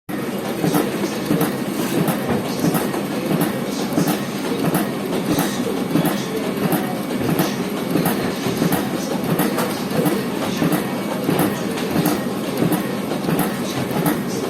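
A steady rumbling running noise with short sharp clacks recurring throughout.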